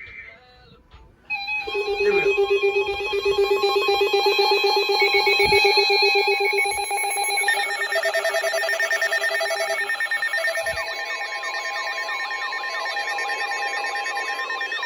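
Several electronic weather-alert alarms sounding at once, about a second in: a dense layer of steady and rapidly pulsing beeping tones. Around ten seconds in, repeated sweeping, siren-like tones and a steady single tone join them. This is the alert signalling an incoming severe thunderstorm warning broadcast.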